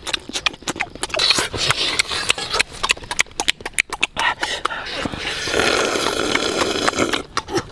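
Close-up sounds of a person eating: open-mouthed chewing and lip-smacking with many sharp clicks. About five seconds in comes a long slurp, about two seconds, of broth drunk from the rim of a pan.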